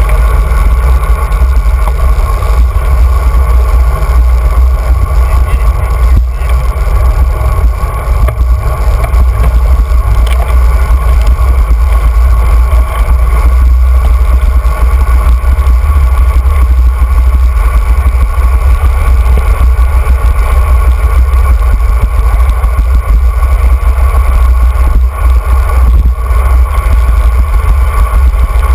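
Steady wind rumble on the microphone of a handlebar-mounted camera as a road bike descends at speed.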